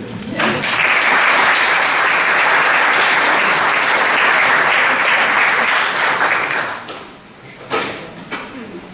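Audience applause that starts right away, holds steady and dies away after about seven seconds, followed by a couple of brief knocks.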